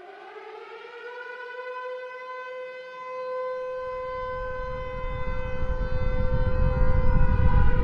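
Civil-defense air-raid siren winding up to its wail, then holding a steady pitch. From about halfway, a deep rumble swells beneath it and grows louder toward the end, building into the blast of a nuclear explosion sound effect.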